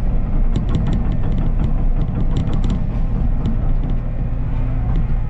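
Burning brush pile crackling and popping with many short, sharp snaps over a loud, steady low rumble.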